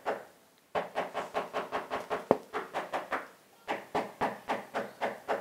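A hand rapidly slapping the SunPower solar cells of a folding fabric-backed Blitzwolf solar panel, about five hits a second, with a short pause a little past the middle. The cells take the blows without cracking.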